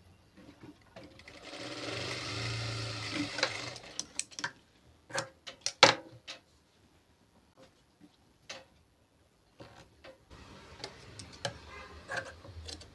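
Electric sewing machine running for a couple of seconds, with its speed wavering slightly, followed by a few sharp clicks, then a quieter second run near the end.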